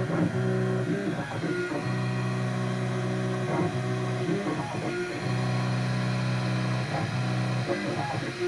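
Key-cutting machine's motor running with a steady hum on a workbench lined underneath with sound-deadening material. The hum is interrupted briefly about two seconds in and again about five seconds in, with some irregular squeaks over it.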